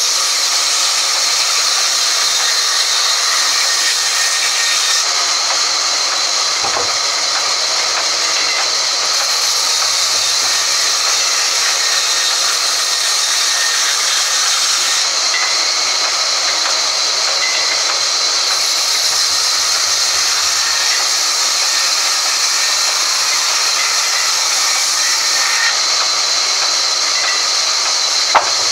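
Sawmill band saw running and cutting lengthwise through a log: a steady, loud hiss, with a sharp click about a third of the way in and another just before the end.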